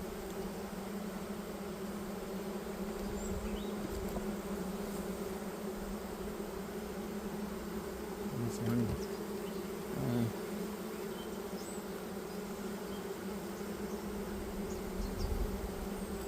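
A colony of honeybees buzzing steadily around an opened hive, a dense, even hum of many wings. Twice near the middle it swells briefly louder, as bees pass close to the microphone.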